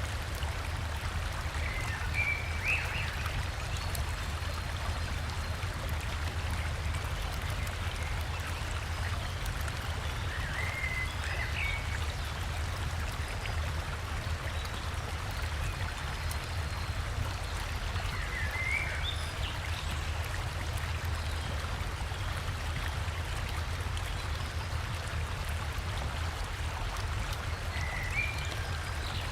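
Steady rushing of a river with a waterfall, an even wash of water noise with a low rumble. A bird gives a short call four times, about every eight or nine seconds.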